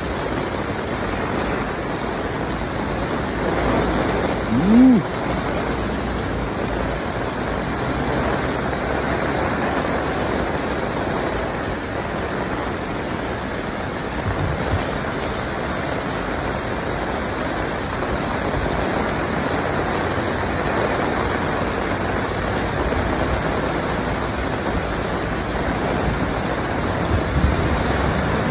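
Torrential rain pouring down and floodwater rushing over the road, a steady heavy rush of noise. A short pitched sound, rising then falling, cuts through briefly about five seconds in.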